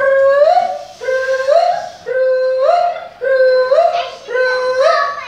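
Voices making a repeated vocal call five times, about once a second: each call holds one note and then slides up at its end. It is a sound imitation during a story, begun by a woman calling through cupped hands.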